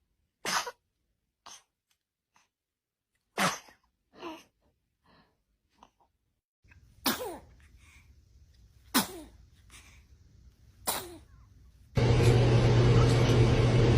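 Babies sneezing: about five short, sharp sneezes a couple of seconds apart. Near the end a loud steady noise with a low hum comes in.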